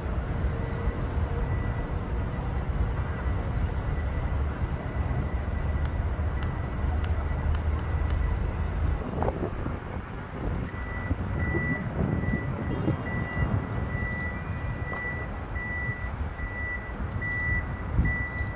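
Steady low rumble of vehicles, heaviest in the first half. From about eleven seconds in, a vehicle's reversing alarm beeps over and over at one high pitch.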